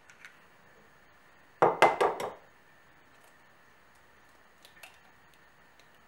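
A quick run of four sharp knocks on kitchenware, about a second and a half in, with a few faint clicks before and after.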